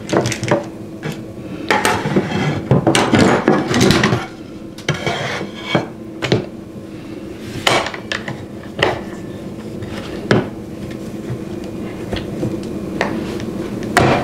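Handling clatter of a wooden board being set in place and a Kreg locking clamp being worked and closed down on it: a run of sharp metal-and-wood clicks and knocks, dense in the first few seconds and sparser after. A steady low hum runs underneath.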